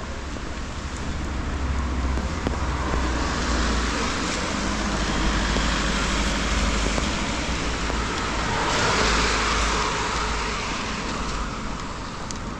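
A car passing on a wet street: the hiss of its tyres on the rain-soaked road builds, is loudest about nine seconds in, then fades, over a steady low rumble.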